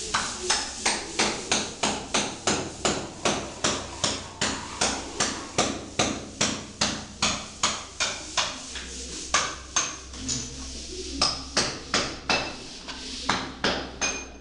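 Steady hammering: sharp blows about two to three a second, with a short pause about ten seconds in.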